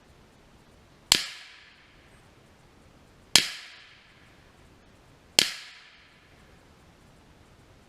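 Three rifle shots about two seconds apart, each sharp crack fading out over about half a second.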